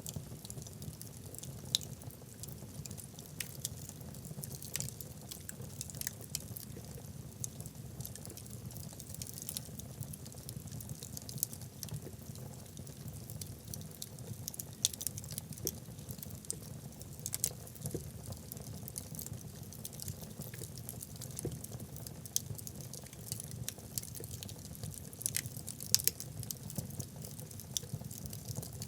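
Wood fire burning in a fireplace: logs crackling with irregular small snaps and pops over a low steady rumble of the flames, with a few sharper pops now and then.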